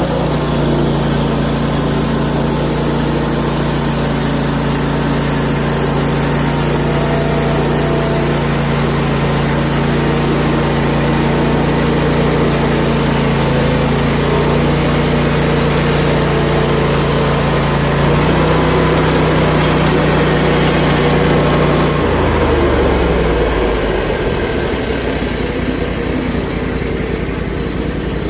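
Portable band sawmill's gas engine running steadily under load as the blade saws through a log cant, then its revs dropping to a lower pitch about 22 seconds in.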